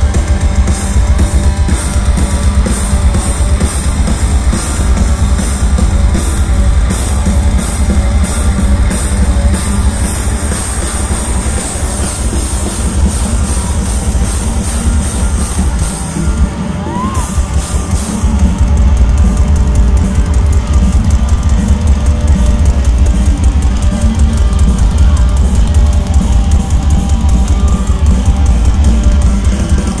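Live rock band playing an instrumental stretch through the PA: drum kit, electric guitar and keyboards, loud and heavy in the bass. The band thins out briefly about halfway through, then comes back in fuller.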